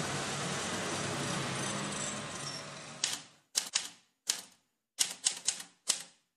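A steady rushing noise fades out over the first three seconds. Then typewriter keys strike one at a time at an uneven pace, about ten sharp clacks with short silences between them.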